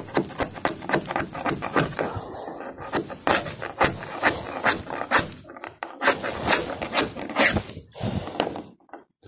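Steel chisel scraping and chipping old fiberglass off a boat deck: a quick run of sharp scrapes and cracks, about three a second, that stops shortly before the end.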